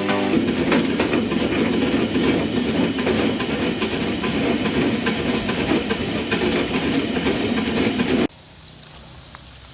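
Screw conveyor machine running: a loud, steady mechanical rattle with clicking, which cuts off abruptly about eight seconds in.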